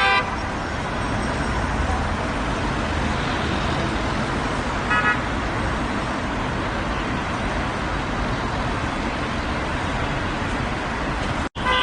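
Road traffic noise: a steady rumble and hiss of passing vehicles, with one short car-horn toot about five seconds in. The sound cuts out for an instant near the end.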